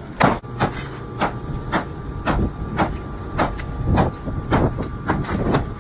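Small sledgehammer striking a concrete block wall: about a dozen sharp blows in a steady rhythm, roughly two a second, knocking out scored masonry.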